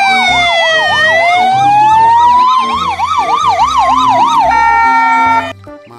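Ambulance sirens: a slow wail that falls, then rises and falls again, overlaid with a fast yelp warble. Near the end it turns to steady tones and cuts off suddenly.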